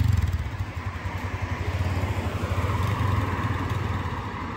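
Small motorbike engine running steadily with an even firing pulse, easing off slightly toward the end, during a test run after a tyre replacement.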